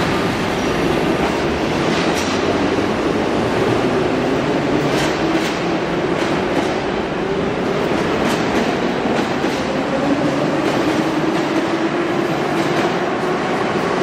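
Moscow Metro 81-717/714 train pulling out of the station: the traction motors whine, their pitch rising slowly as it gathers speed, and the wheels click over the rail joints from about five seconds in.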